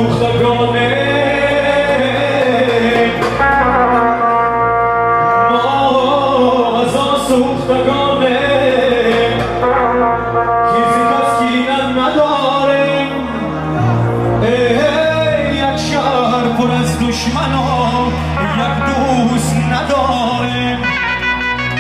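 Live amplified music: a man sings through a handheld microphone over a Korg arranger keyboard playing a brass-like melody with bass, the band's frame drum alongside.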